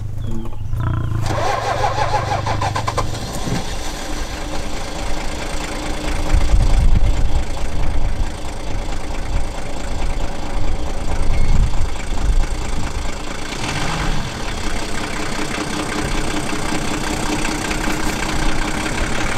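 Vehicle engine starting, then running at a steady idle, with heavier low rumbles about six and eleven seconds in.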